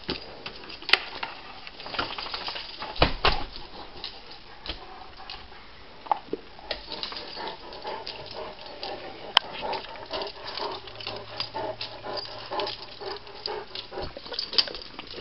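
Dogs moving about on a hard floor: paws and claws pattering, with scattered short knocks and clicks.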